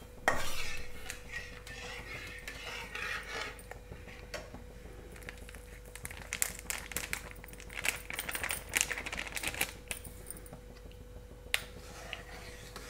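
Metal spatula scraping and clinking against a steel kadhai while milk is stirred, loudest just after the start and then in a run of quick scrapes and taps through the middle.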